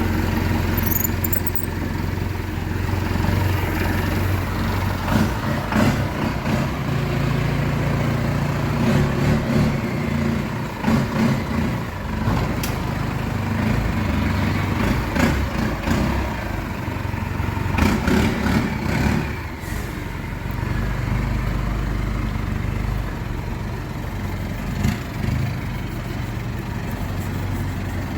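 Toyota Bandeirante's 14B four-cylinder diesel engine running, its low note shifting a few times, with scattered clicks and knocks over it.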